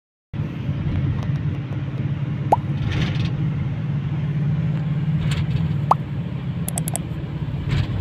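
Steady low rumble of road and engine noise inside a moving car's cabin, starting just after the opening. Two short rising blips sound about two and a half and six seconds in.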